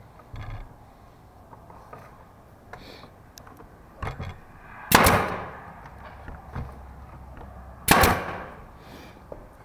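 Pneumatic brad nailer firing twice, about three seconds apart, each shot a sharp bang as it drives a brad into the wood, with a lighter knock just before the first.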